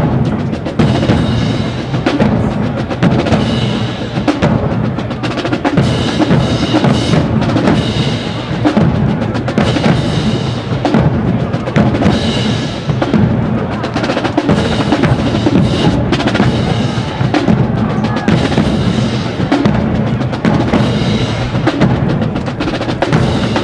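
Marching band drumline playing a cadence: bass drums, snare drums and cymbals in a continuous driving rhythm.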